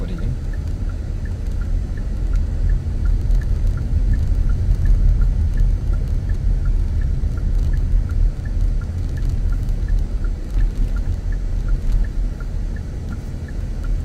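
A steady low rumble at an uneven, fluctuating level, with faint high chirps repeating at an even pace.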